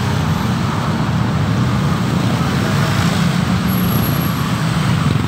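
Steady street traffic noise, with motorcycle and car engines running and passing.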